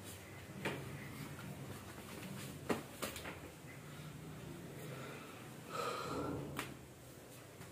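Quiet room tone with a steady low hum, a few soft clicks, and a man's short breath about six seconds in.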